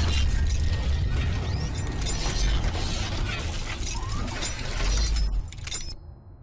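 Logo-intro sound effects: dense metallic clanking and ratcheting of mechanical parts over a deep bass rumble, dropping away near the end.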